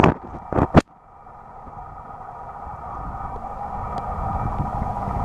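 A few sharp knocks in the first second, then a steady mechanical hum with several held tones that grows gradually louder.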